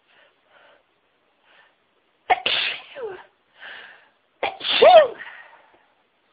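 A woman sneezing twice, about two seconds apart, the second sneeze louder. Short quiet breaths come before them and another breath falls between them.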